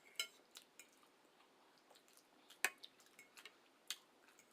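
Quiet eating of spaghetti and meatballs: a handful of faint, scattered clicks and ticks, the sharpest a little past halfway.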